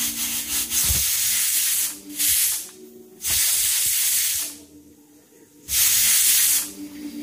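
Pressure cooker whistling as steam escapes from the weight valve, in about four loud hissing bursts with a low whistling tone underneath; the rice and water inside are cooking under pressure.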